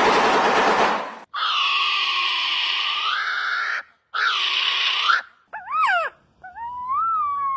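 A string of strange bird calls: a harsh, noisy burst for about the first second, then two long drawn-out nasal calls, each bending up in pitch at its end. Near the end come a few quick wavering calls and a long whistled note that rises and falls as it stops.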